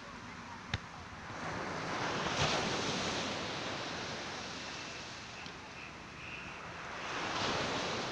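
Sea surf washing in and drawing back, swelling about two seconds in and again near the end. A single sharp smack just under a second in, as a volleyball is struck.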